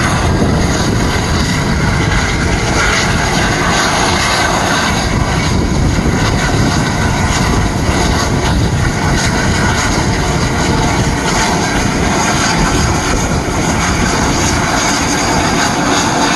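Cog railway steam locomotive Ammonoosuc working hard as it climbs a steep grade, pushing its coach: a loud, steady roar of exhaust and steam.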